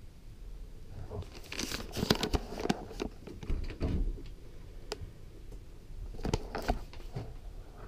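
Scattered light knocks, clicks and rustles of someone moving about inside a motorhome with a camera in hand: footsteps and handling noise, in two busier stretches, one in the first few seconds and another near the end.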